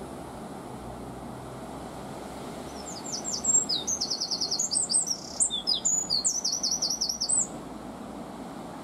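A songbird sings a loud, fast song of trills and rapidly repeated high notes, starting about three seconds in and lasting about four seconds, over the steady low rumble of an approaching NIR Class 4000 diesel multiple unit.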